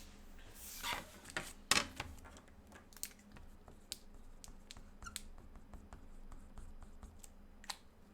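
Irregular light clicks and taps from a computer keyboard and mouse, with a brief rustle about a second in and one sharper click just after.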